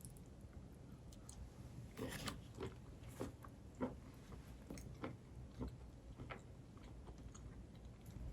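A person chewing and biting food, with irregular soft crunches and clicks over a low steady hum.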